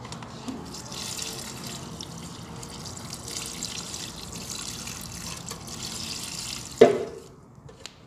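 Water running as plants are watered, a steady hiss that stops about seven seconds in with a short knock, the loudest sound.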